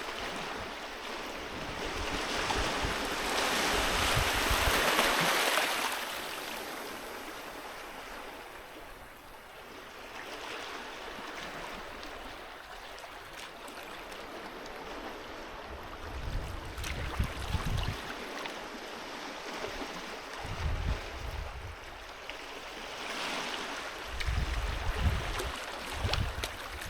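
Sea waves washing onto a beach in repeated surges, loudest about three to six seconds in. In the second half, gusts of wind buffet the microphone with low rumbles.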